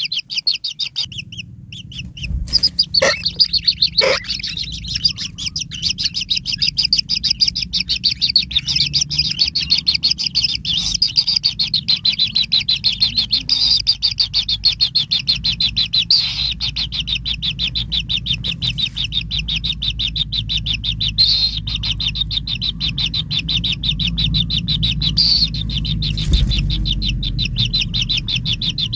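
White-throated kingfisher nestlings giving a rapid, unbroken run of high begging chirps, with a short pause about a second in. There is a low steady hum underneath and two short knocks about three and four seconds in.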